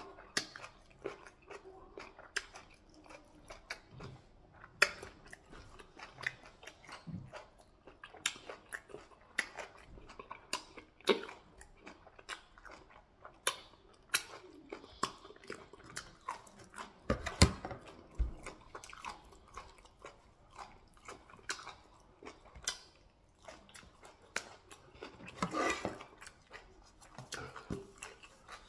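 Close-miked chewing and biting of beef and fufu: wet smacking with irregular crunchy clicks. A couple of low thumps come about seventeen seconds in.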